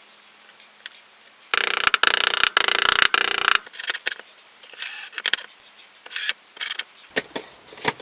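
Cordless drill/driver running for about two seconds, driving screws through a plastic mounting plate into a drywall ceiling. It is followed by scattered clicks and knocks of handling the plate and detector.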